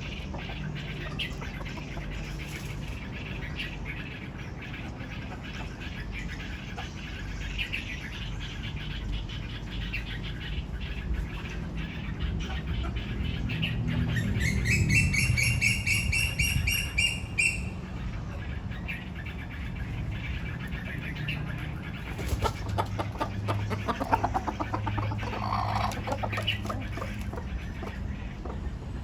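Backyard chickens clucking over a steady low hum. Midway a bird gives a rapid, high-pitched trill lasting about three seconds, while the hum briefly swells.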